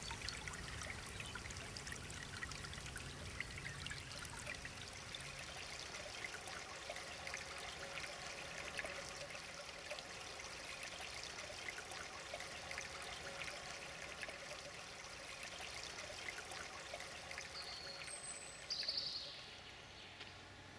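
Small woodland brook babbling and splashing over rocks in a little cascade, a steady rush of water with fine splashy detail. Near the end a bird gives a few short high chirps, the last one falling in pitch and the loudest sound.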